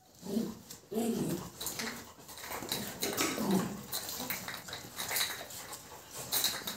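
A litter of 52-day-old white Labrador retriever puppies playing with an adult Labrador: short, scattered puppy yips and whines among frequent light clicks and rattles.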